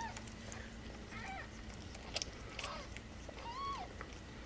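Newborn kittens mewing: three short, high, thin calls about a second apart, the last one longer. A couple of small clicks come about two seconds in.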